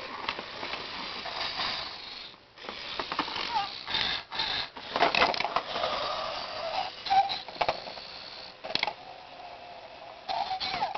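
Zhu Zhu Pets battery-powered toy hamster running through a plastic tube playset: a small motor whirring, with irregular clicks and knocks as the toy bumps against the plastic.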